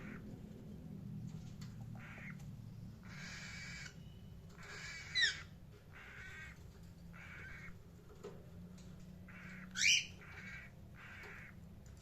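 Indian ringneck parakeet calling: a run of short harsh calls about one a second, with two louder shrill screeches that sweep in pitch, about five and ten seconds in, over a steady low hum.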